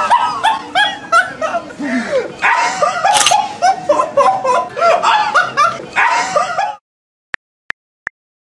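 Rapid, high-pitched cartoon laughter in short rising-and-falling yelps, with one sharp click about three seconds in. The laughter stops abruptly near the end. Three short tick sounds from a phone keyboard being typed on follow.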